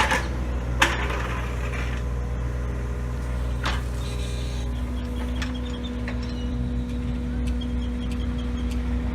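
John Deere 35G compact excavator's diesel engine running steadily, with two sharp knocks in the first four seconds and a steady higher whine joining about halfway through.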